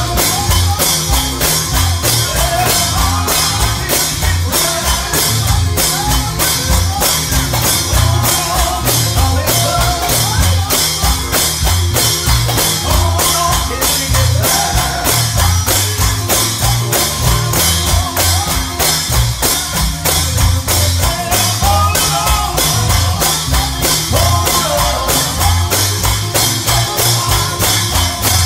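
Live church band music: a drum kit keeping a steady fast beat over a bass line, with a melody line above.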